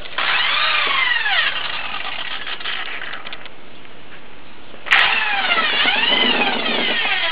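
Drill spinning a corn-kernel cutting bit through an ear of corn, its motor whine sweeping up and down in pitch as the speed changes under load. It eases off about three and a half seconds in and runs up again about five seconds in.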